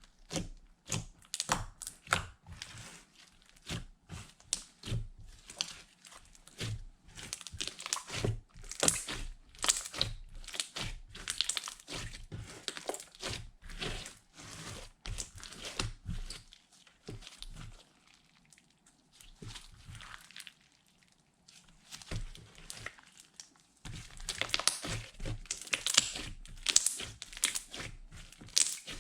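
Slime being kneaded and stretched by hand, a rapid run of sticky crackles and small pops that eases off for a few seconds past the middle, then picks up again.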